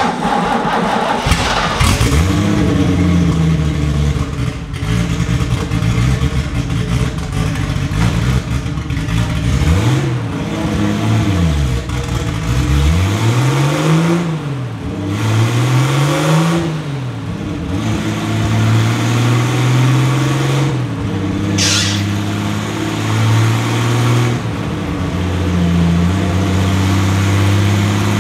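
Turbocharged BMW M20 straight-six in an E30 race car running unsilenced, blipped three times about ten to eighteen seconds in, the pitch rising and falling with each rev, then held at a steady raised speed. A short sharp burst of noise comes about two-thirds of the way through.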